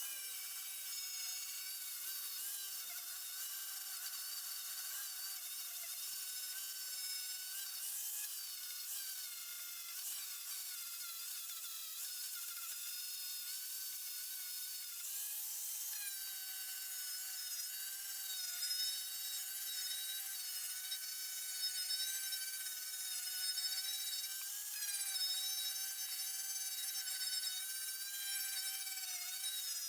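Power cutting tool running continuously as it cuts rusted sheet metal out of a car's quarter panel: a steady high-pitched whine whose pitch wavers slightly.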